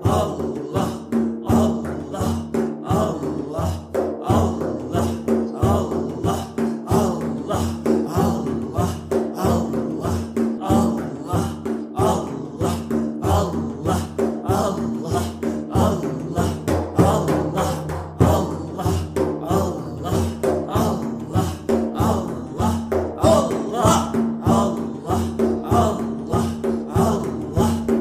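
Sufi zikr music: a chanted, repeated invocation of the name of God over a steady low drone and a constant, fast percussion beat.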